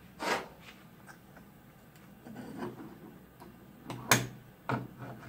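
Metal transmission parts clinking and scraping against the steel workbench and the C4 transmission case as they are handled: a clink near the start, a scraping a couple of seconds in, then a sharp clank about four seconds in, the loudest, and a softer one just after.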